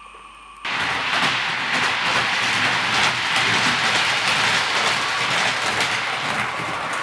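00 gauge model train running along the layout's track: a steady rattle of wheels over the rails that starts abruptly about half a second in.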